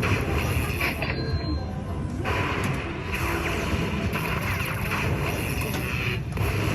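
Lightning Link slot machine playing its electronic game music and spin effects, dipping briefly about a second in, over casino floor noise.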